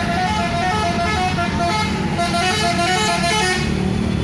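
Bus 'telolet' musical horn playing a quick tune of short notes stepping up and down in pitch over the rumble of the bus engine; the tune stops about three and a half seconds in.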